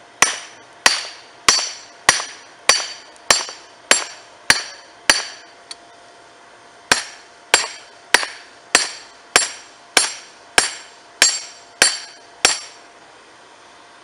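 Hand hammer striking a red-hot railroad spike on a chain-wrapped steel anvil block. The blows come steadily about every 0.6 s, each with a short bright metallic ring, in two runs of about nine and ten blows with a pause of roughly a second and a half between them.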